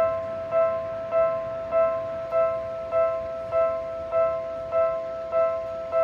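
Seibu Railway-type electronic level-crossing alarm sounding: a pitched chime struck about every 0.6 s, each stroke ringing on into the next, warning that a train is approaching.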